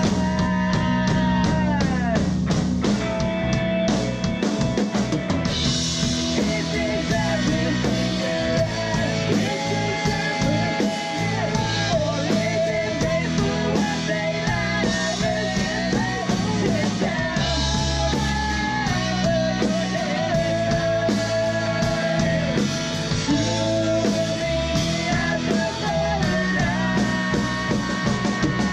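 Rock music from a band: a drum kit and bass under a wavering melodic line, possibly with singing.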